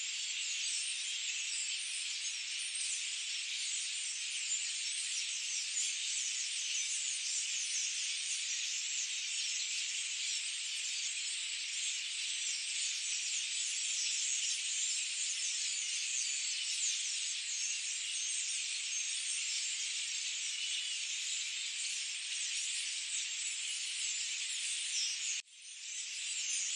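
Dense, steady, high-pitched chorus of forest birds and insects, a continuous shimmer of rapid chirps. It drops out for a moment near the end and comes straight back.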